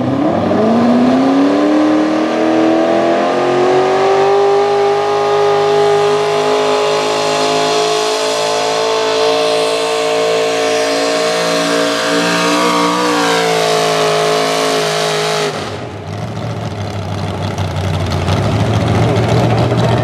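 Modified small-block V8 of a 4x4 pulling truck revving up at the launch, then running hard at high rpm under load while dragging the sled, its pitch still creeping upward. About fifteen seconds in, the engine note drops off abruptly as the pull ends, leaving a lower rumble.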